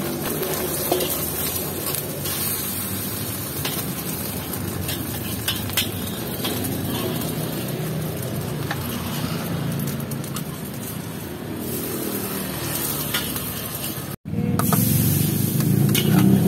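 Egg frying in hot oil in a steel wok, sizzling steadily, with a metal spatula scraping and clicking against the pan. About fourteen seconds in the sound cuts out for a moment, and a louder, lower sound follows.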